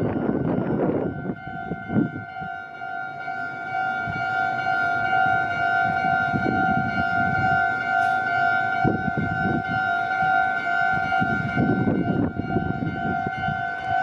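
Japanese level-crossing electronic warning bell ringing its repeated 'kan-kan' alarm, starting about a second in and holding steady, over a low rumble that grows louder near the end.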